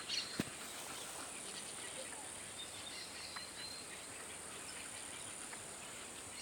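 A steady high-pitched insect chorus, with a few faint bird chirps and one sharp click shortly after the start.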